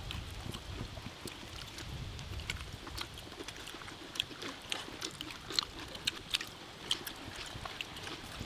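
People eating grilled beef by hand: scattered short clicks and smacks of chewing and of fingers picking at meat and salad, irregular and close, over a low steady rumble.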